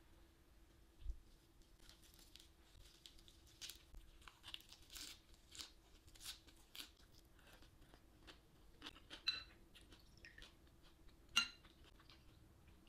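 Crisp crunching of a lettuce wrap being chewed, a run of soft crackles. Near the end two sharp glassy clinks, the second the louder, as a small glass is handled.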